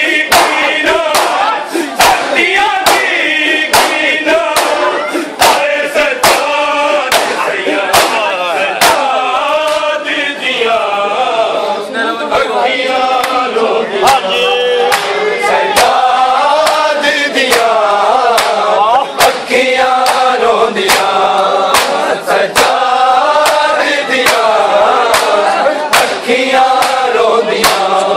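A male reciter chanting a Punjabi noha (Shia lament), with a group of voices joining in, over a steady beat of sharp slaps from matam, mourners striking their chests with their hands.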